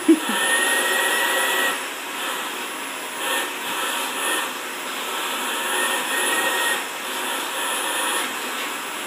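Vacuum cleaner running steadily. Louder stretches with a slightly rising whine alternate with quieter ones as the nozzle is worked over a cat's fur. Two brief low sounds come right at the start.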